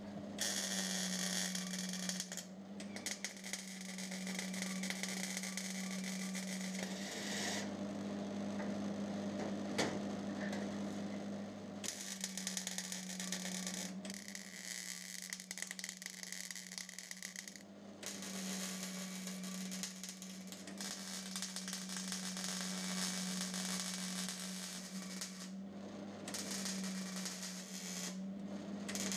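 A power tool working on metal, running steadily with a constant hum under hissy, crackling noise that comes in several long stretches with brief breaks between them.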